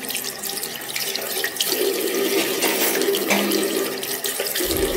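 Tap water running into a bathroom sink and splashing over hands being washed under the stream. A low rumble joins in near the end.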